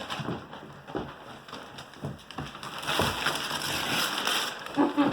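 Christmas wrapping paper being torn and crumpled as a present is unwrapped: irregular crackling and ripping.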